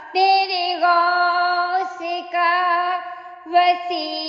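A woman singing a Sufi devotional song in Urdu and Punjabi, drawing out long held notes of the refrain between its words, with short breaks and slides in pitch between the notes.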